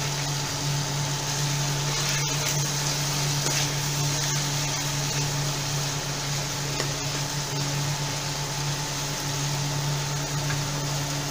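Steady low mechanical hum with a hiss, and a few faint taps and scrapes of a spoon stirring a thick onion-tomato-curd masala in a nonstick pan.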